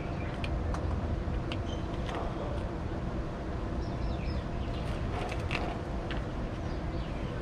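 Outdoor roadside ambience: a steady low rumble of traffic, a few short bird chirps, and scattered light clicks and taps.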